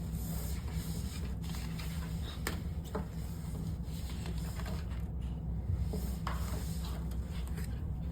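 Steady low hum of a ferry's on-board machinery inside a passenger cabin, with scattered light clicks and rustles of things being handled.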